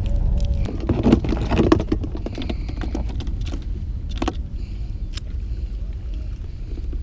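Clicks and knocks of a fish grip and a small plastic cooler being handled as a caught fish is put into the cooler: a cluster about a second in and one sharp click about four seconds in. Under them, a steady low rumble of wind on the microphone.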